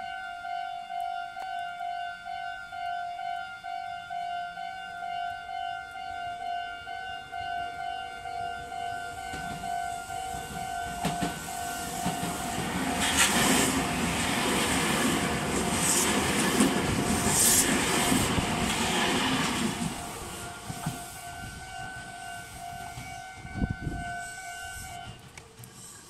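Japanese level-crossing warning bell dinging steadily, joined by a Meitetsu 4000-series electric train running over the crossing with its wheels clattering on the rails, loudest midway as the cars go by. The bell stops near the end.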